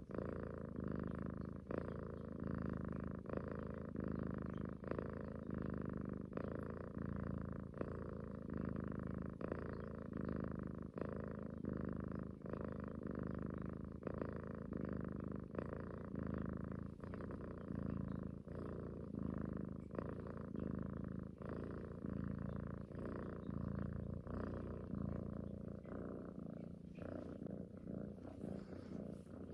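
Domestic cat purring close up, a steady low rumble broken by brief pauses about once a second.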